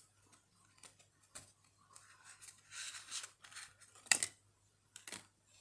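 Tarot cards being handled and drawn from a fanned deck: faint scraping of card on card with a few sharp clicks, the loudest a little after four seconds in.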